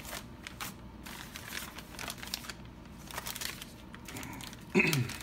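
Plastic mailer packaging crinkling and rustling in irregular crackles as it is handled and its contents are pulled out.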